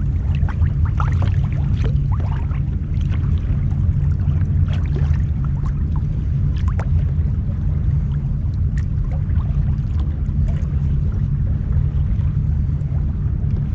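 Water lapping and splashing against a fishing kayak's plastic hull over a steady low rumble, with scattered small clicks and drips.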